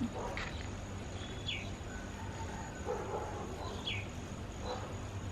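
Outdoor farm ambience: a few short, falling bird chirps over a faint steady insect drone and low background noise.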